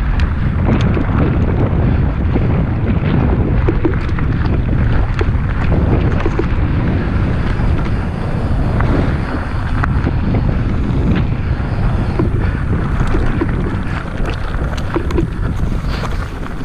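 Mountain bike riding over a leaf-covered dirt trail: wind buffeting the microphone over the steady rumble of the tyres, with frequent small clicks and knocks from the bike jolting on the ground.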